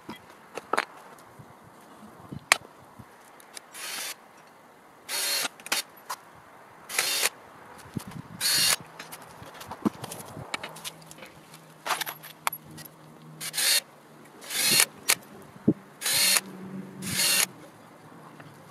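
Steel-rod fire-bowl frame handled on pavement: about ten short, harsh scrapes come at irregular gaps of a second or so, with sharp knocks between them.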